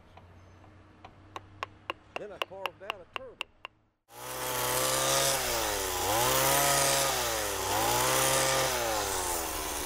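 A run of about a dozen sharp clicks. Then, about four seconds in, a gas chainsaw starts running and cutting wood, its engine pitch dropping and recovering every second and a half or so as it bogs in the cut.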